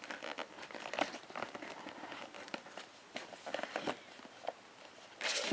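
A cardboard phone box being opened by hand: soft scattered rustles, scrapes and taps as the fitted lid slides off, with a louder rustle just before the end.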